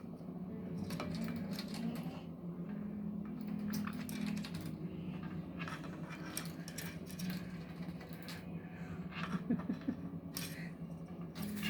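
Scattered light clicks and scratches, irregular and close together, over a steady low hum.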